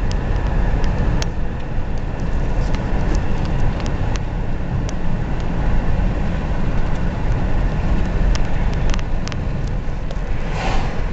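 A car driving: steady low road and engine rumble, with scattered small clicks and rattles.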